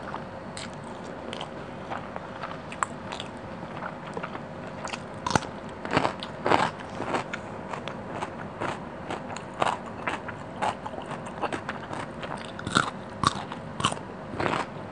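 Close-miked eating sounds: biting and chewing mouthfuls of fish curry and rice and crisp cucumber, heard as irregular crunches and clicks, with louder crunches about five to seven seconds in and again near the end.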